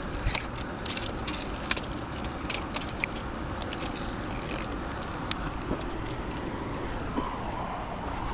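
Steady rush of creek rapids. In the first few seconds there is a run of sharp clicks and taps from handling the bass while measuring it.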